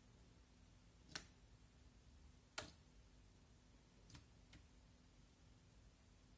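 Putty slime popping: four short sharp pops, the second the loudest and the last two close together, against near silence.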